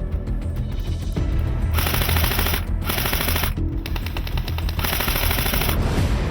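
Airsoft guns firing on full auto: rapid runs of shots with three long, loud bursts about two, three and five seconds in. Background music plays underneath.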